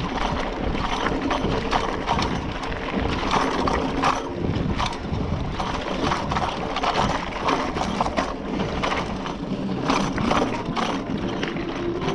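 Scott Spark 960 full-suspension mountain bike rolling fast over loose stones, its tool bag and frame rattling and clattering in a dense, irregular stream of clicks as the rocks shake it, over the rumble of the tyres on the gravel.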